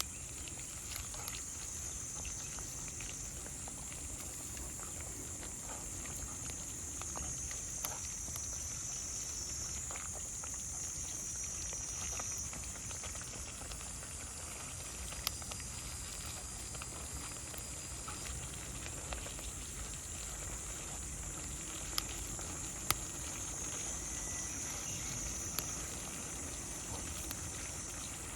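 Insects chirping in a steady high-pitched chorus, with a few sharp pops from a crackling campfire.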